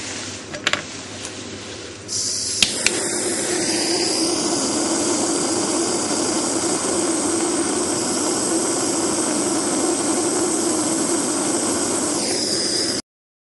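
Jeweller's gas soldering torch burning with a steady hiss, set to its fine flame for soldering a small jump ring closed. A few sharp clicks come before the flame sound starts about two seconds in, and the hiss cuts off suddenly near the end.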